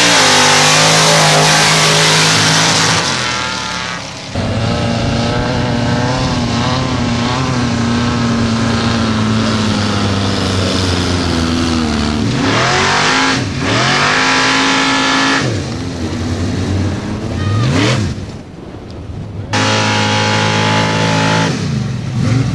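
Ford drag truck's engine at full throttle on a drag-strip launch, then running on sand, its pitch wavering and rising and falling as it revs several times.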